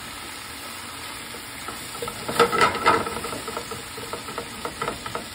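Chard leaves sizzling in hot olive oil in a frying pan, with a silicone spatula stirring and scraping through them. The scraping is loudest in a short flurry about two and a half seconds in, then continues in lighter strokes.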